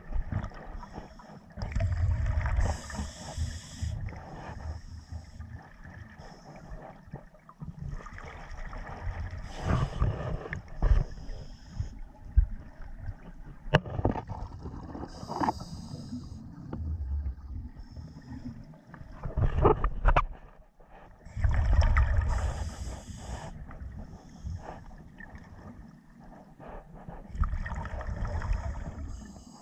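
Scuba diver breathing through a regulator underwater: each breath brings a hiss and a gurgling rush of exhaled bubbles, repeating about every six seconds, five times in all.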